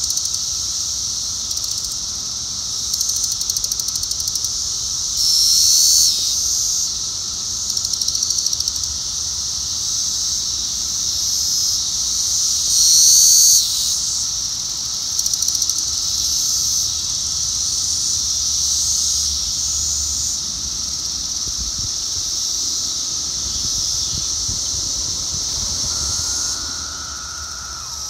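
Brood X periodical cicadas chorusing in a small oak: a steady, high-pitched drone with a fainter, lower steady tone beneath it. Several louder buzzes from nearby cicadas swell out of it, the loudest about five and thirteen seconds in.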